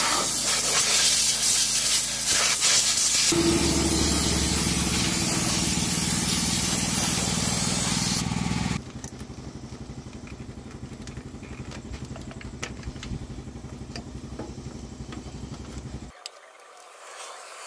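Aerosol spray can hissing steadily as it is sprayed onto the diesel engine's top end, stopping about eight seconds in. A low, steady rumble runs underneath, goes on after the spray stops, and cuts off sharply near the end.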